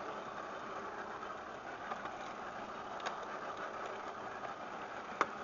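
Boat engine running steadily, with a short sharp click about three seconds in and a louder one near the end.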